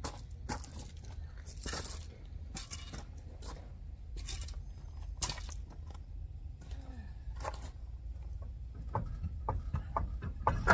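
Scattered metallic clinks and knocks of hand tools and parts being handled at a truck's rear dual wheel, the sharpest about five seconds in, over a steady low rumble.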